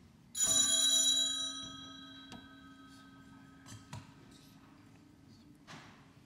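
Altar bell rung about half a second in, its ringing tones dying away slowly over several seconds: the bell rung at the elevation during the consecration. A few light clicks follow.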